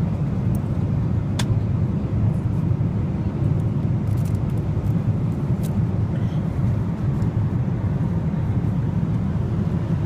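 Jet airliner cabin noise in flight: a steady low roar that never changes, with a few light clicks over it.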